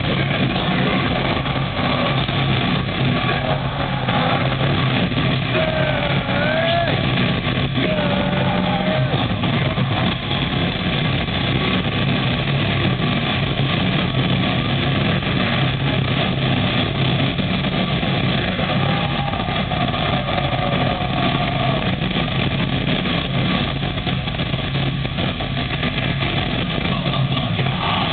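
Heavy metal band playing live in an arena: a loud, dense, unbroken wall of distorted guitar and drums, muffled in this low-quality audience recording. A voice wavers above it about six seconds in.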